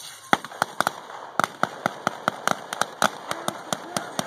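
A rapid, irregular string of sharp pops, roughly four a second, from a mock battle demonstration's pyrotechnics and blank fire just after a large explosion.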